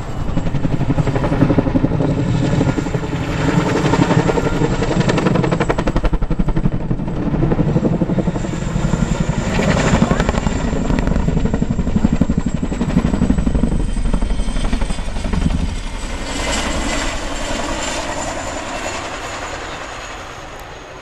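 Boeing CH-47 Chinook tandem-rotor helicopter flying a display, its rotor blades beating in a rapid, loud pulsing with a thin high whine over it. It grows quieter over the last few seconds as it moves away.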